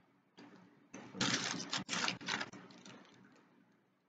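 Close-up mouth sounds of chewing food, a run of irregular wet clicks and crackles from about one to three seconds in that fade away toward the end.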